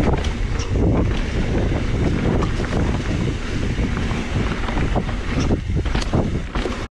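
Wind buffeting the camera microphone over the rumble of a mountain bike's knobby tyres rolling on dry dirt singletrack, with scattered sharp clicks and rattles from the bike over bumps. The sound cuts off suddenly at the very end.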